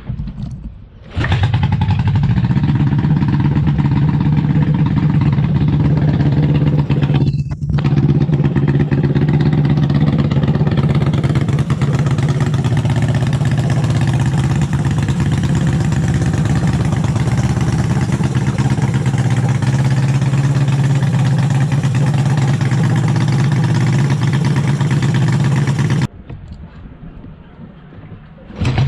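1974 Honda CB360's four-stroke parallel-twin engine running steadily. The sound drops out for a moment about a quarter of the way in, and turns quieter shortly before the end, then comes back.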